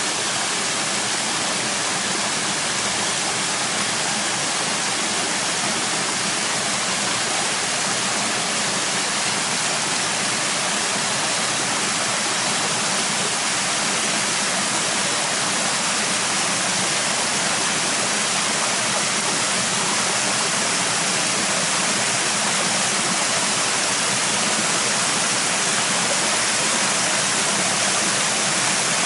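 Waterfall plunging into a pool: a steady, unbroken rush of falling water, strongest in the upper range.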